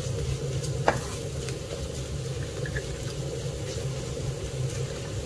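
Wooden spatula stirring thick chicken pickle masala in a stone-coated frying pan, the mix sizzling lightly, with a few clicks of the spatula against the pan over a steady low hum.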